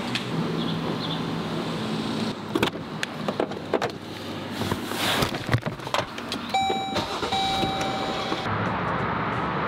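Knocks and clunks of a Jeep's door and of someone climbing into the driver's seat. About two thirds in, the car's electronic warning chime pings for a couple of seconds, and after that a steady hum takes over.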